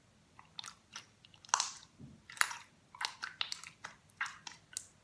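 Homemade slime, slightly sticky and crumbly, being squeezed and kneaded by hand, giving irregular sharp crackles and pops.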